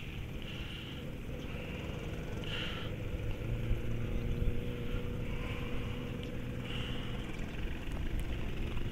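A motor engine running steadily with a low hum, growing a little louder partway through and easing slightly near the end.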